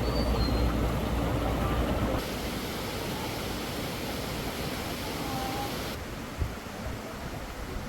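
Steady outdoor background noise, a rushing hiss without a clear source, that changes character abruptly about two seconds in and again about six seconds in, with a few faint short tones.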